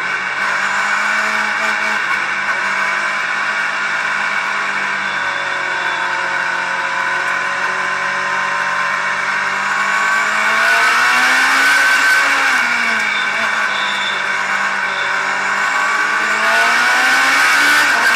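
Race car engine heard on board at racing speed, its pitch falling and rising repeatedly as the car lifts and accelerates around the oval, climbing about ten seconds in and again near the end, with the other cars in the pack running close by.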